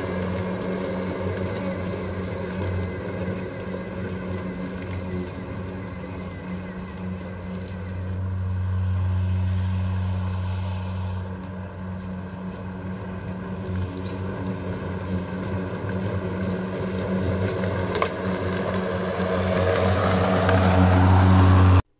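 Ryobi 40-volt battery-powered self-propelled lawn mower running while cutting grass: a steady electric-motor and blade hum with a low, even tone. It dips somewhat in the middle and grows louder near the end as the mower comes back toward the microphone.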